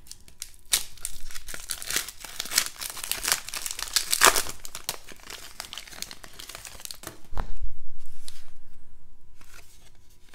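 Foil trading-card pack being torn open and its wrapper crinkled as the cards are slid out, with crackly tearing loudest about four seconds in. A dull low bump follows near the end and fades away.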